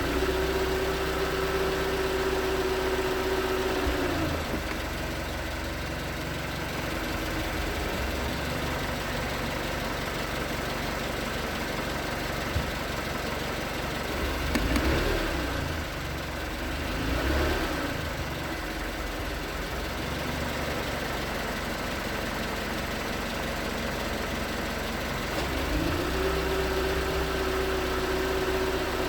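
2019 Hyundai Tucson's 2.0-litre Nu GDI four-cylinder engine idling with a knocking that the owner takes for piston slap when cold. A steady whine over it stops about four seconds in and comes back near the end.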